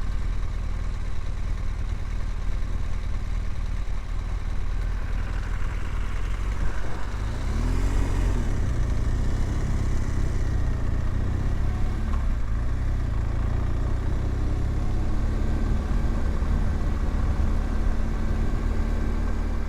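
BMW R1200GSA's boxer-twin engine running as the motorcycle is ridden across hard beach sand, with the revs rising and falling a few times in the middle.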